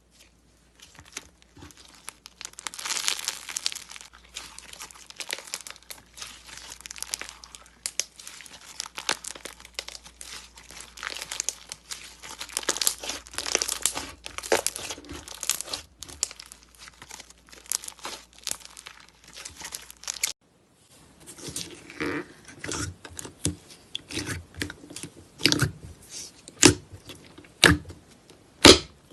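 Slime being squeezed and worked by hand, giving a dense crackling and crinkling. After a short break about two-thirds through, louder, more separate pops and clicks follow.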